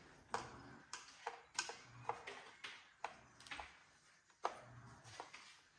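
Irregular light clicks and taps, about one every half second, as tools and plastic parts of a Roomba robot vacuum are handled during disassembly.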